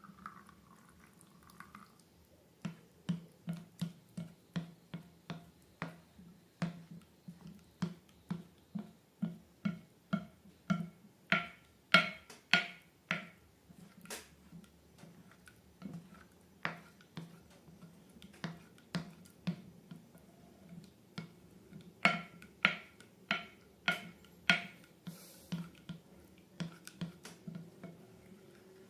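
Slime being pressed and worked by hand, giving a long run of sharp, wet popping clicks, about two a second, loudest around the middle and again toward the end.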